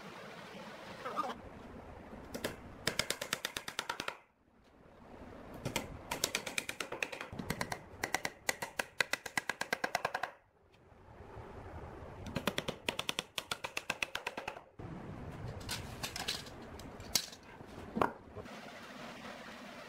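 Bar clamps being cranked tight on a round-wood frame: rapid ratcheting clicks in runs of one to several seconds, about ten a second, with short pauses between them. Two single sharp clicks come near the end.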